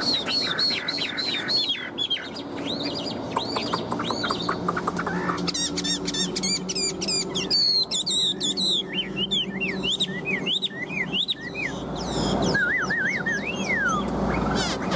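Chinese hwamei singing a long, varied song: a run of repeated arched whistles, then a burst of fast, very high sweeping notes, then looping whistled phrases ending in a long wavering note that falls away.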